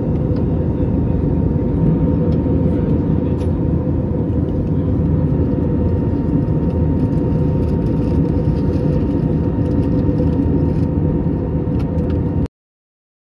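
Steady cabin noise of an Airbus A320neo in cruise, heard inside the cabin: a deep, even rumble of airflow and engines with a faint steady hum. It cuts off abruptly shortly before the end.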